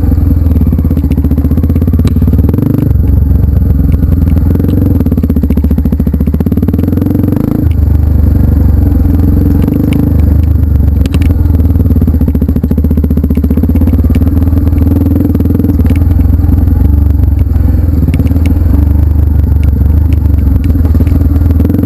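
Off-road trail motorcycle running, a loud, steady low engine drone that shifts a little a few times.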